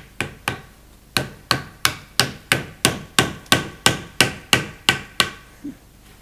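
A hammer tapping a 16 mm plastic tube into a tight-fitting drilled hole in a square wooden fence post: a run of about sixteen sharp taps, most of them steady at about three a second, stopping about five seconds in.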